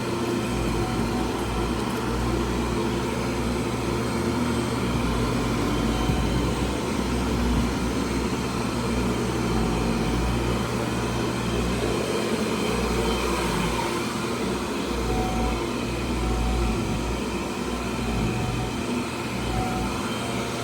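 Tennant commercial vacuum cleaner running steadily, its motor giving an even hum under a broad rushing noise.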